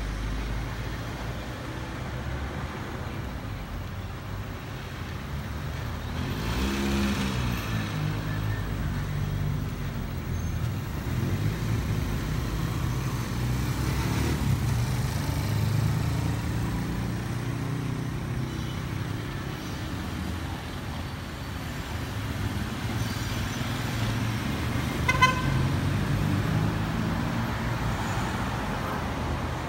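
Street traffic rumbling steadily, with one vehicle passing close about a quarter of the way in and a short car horn toot near the end.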